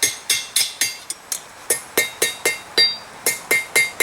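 Steady hammer blows on steel against a Peter Wright anvil, about three to four a second with a brief pause near the end, each strike ringing out. This is the smith reshaping the bend of a forged fire steel that came out a little too steep.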